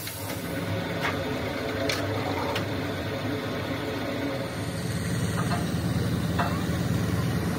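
An engine idling steadily, its low hum louder from about halfway through, with a few faint clicks.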